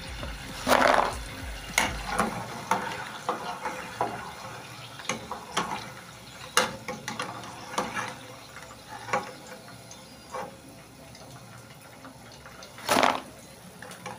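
Potato chips frying in a pot of hot oil on their second fry: a steady sizzle with crackling pops throughout. There is a louder surge about a second in as the batch goes into the oil, and another near the end as a metal slotted spoon scoops through the pot.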